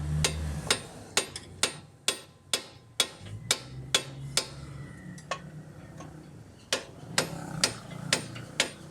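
A hammer striking metal in a steady run of blows, about two a second, each ringing briefly. The blows pause for about two seconds midway, then resume.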